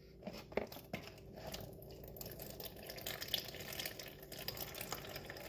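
Canned pineapple juice being poured into a container, splashing and dripping, after a few light clicks near the start.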